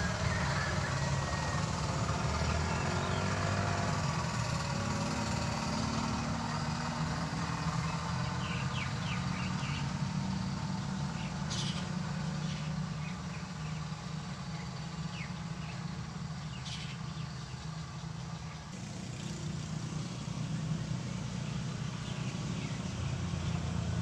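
Small motorcycle engine running as it passes along a road, its hum gliding in pitch early on, fading around eighteen seconds in and growing again near the end. Two short sharp clicks are heard in the middle.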